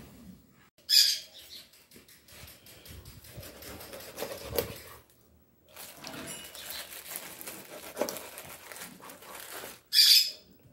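Hands and a kitchen knife working whole raw peacock bass on a wooden board and in a metal tray: wet fish being moved and cut, with small knocks and rustles. Two short, loud scraping hisses, one about a second in and one near the end.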